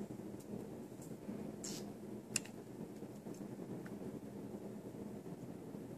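Soft clicks and smacks of a baby being spoon-fed, over a low steady room hum; the loudest is a single sharp click about two and a half seconds in.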